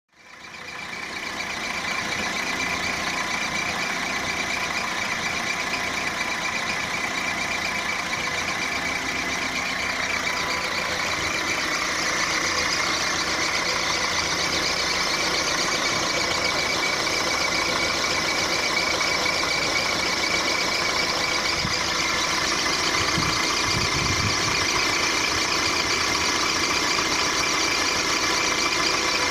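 Volkswagen Golf Mk4 1.4-litre petrol four-cylinder engine idling with a steady high squeaky noise over it, which the owner suspects comes from one of the drive belt pulleys or the water pump.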